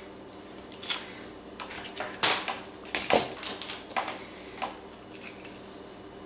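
A knife cutting up a peach by hand over a plastic cutting board, with a handful of short, irregular knocks and clicks of knife and fruit pieces on the board.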